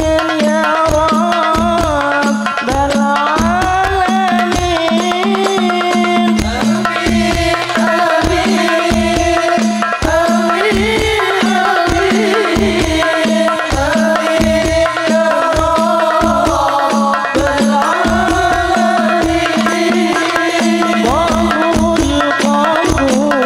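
Banjari-style sholawat: a male lead voice sings a flowing devotional melody over rebana frame drums and a deep bass drum beating a steady rhythm.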